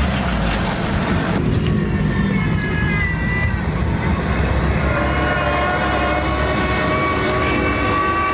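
Low, steady engine rumble of a heavy vehicle or farm machine. About a second and a half in the sound cuts abruptly, and a steady tone with several pitches rises over the rumble and grows louder toward the end.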